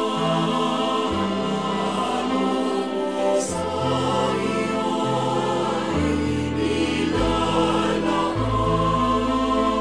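Choral background music: a choir singing held chords over a bass line that moves from note to note every second or so.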